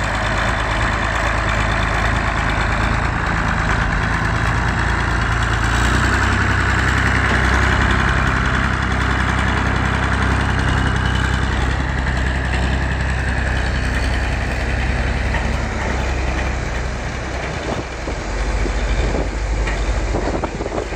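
Ursus 1201 tractor's diesel engine running hard under heavy load while towing a 40-tonne tipper truck, a steady low engine note that shifts in pitch a few seconds in and again near the end, with a few knocks in the last seconds.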